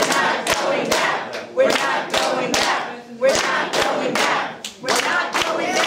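A crowd chanting a slogan in unison, in phrases about every second and a half, with hands clapping in time between the phrases.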